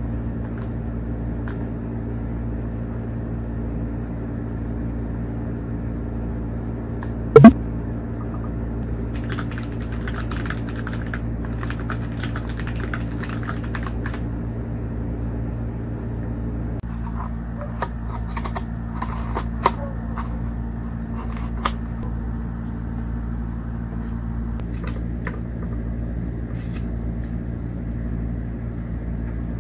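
A steady low hum with scattered clusters of light clicks and taps, and one sharp, much louder click about seven seconds in.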